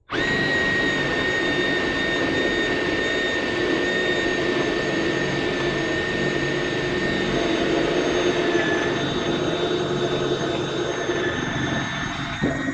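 Power drill with a 1/2-inch bit running steadily as it bores a hole into the end of a wooden rail post, with a steady high whine from the drill motor. It changes briefly near the end and then stops.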